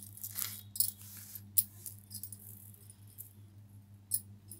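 Jewellery being handled: bead and pearl chains and small gold-plated metal pieces clinking and rattling against each other, busiest in the first two seconds, then a few single clinks. A steady low hum runs underneath.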